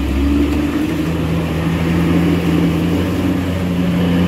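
Heavy tanker truck's diesel engine pulling hard on a steep, wet uphill bend: a steady low drone that drops in pitch right at the start and then holds.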